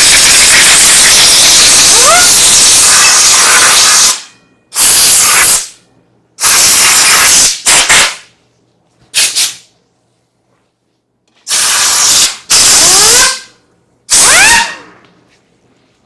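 Compressed air blasting out of a blow-gun nozzle onto a cooling fan and circuit boards: one long hissing blast, then several short bursts with pauses between them. Some bursts carry a whine that rises in pitch as the air spins the fan up.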